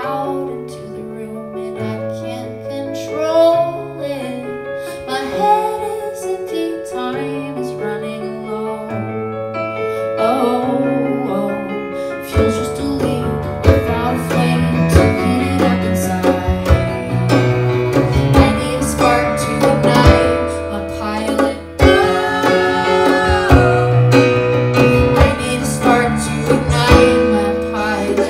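Live music: a woman sings over held electric-keyboard chords. About twelve seconds in, the accompaniment grows fuller and louder with plucked strings.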